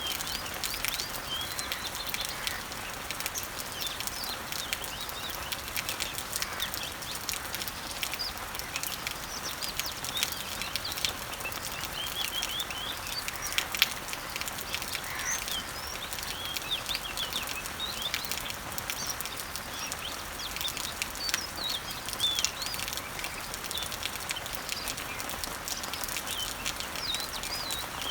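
Rain pattering steadily on garden leaves as a hiss of fine ticking drops, with small birds chirping repeatedly in short, high chirps throughout. There is one sharper tick about halfway through.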